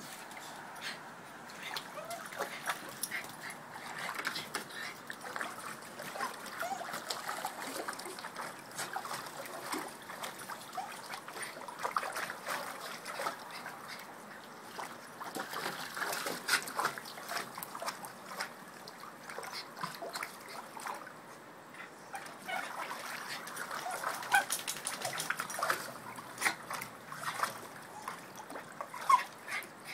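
Small white puppy paddling and splashing in a plastic kiddie pool: water sloshing with many small splashes, and a few short dog whimpers.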